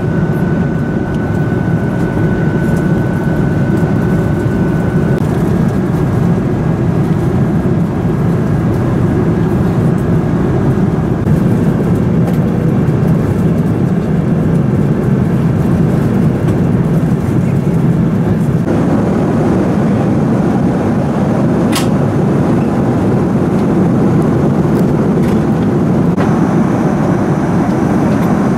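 Steady airliner cabin noise in flight inside an Airbus A330-300, the low, even rush of engines and airflow around the fuselage. A faint steady tone fades out in the first few seconds, and there is a single brief click about three-quarters of the way through.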